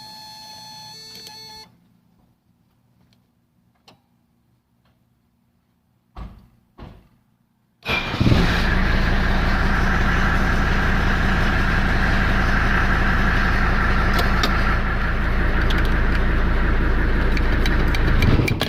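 Two short thumps, then about eight seconds in the W123 Mercedes' engine starts suddenly and runs loud and steady with a fine even rhythm. The noise is what the owner takes for a bad fan clutch, not engine knock.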